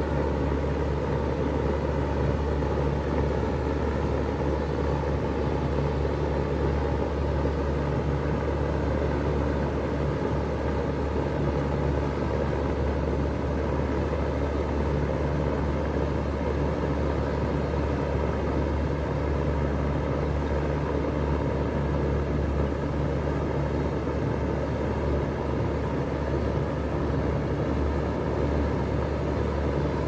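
2018 3-ton Bard wall-mount heat pump running steadily in cooling mode: a constant low hum with an even, airy rush over it, with no change in speed or level.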